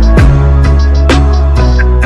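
Background music with a steady beat: drum hits over a deep sustained bass.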